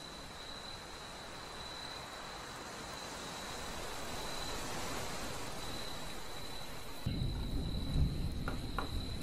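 Steady hiss with a thin, steady high tone. About seven seconds in, a low rumbling scrape and a few light knocks come in as the mud-caked toy pistol is handled on the wooden workbench.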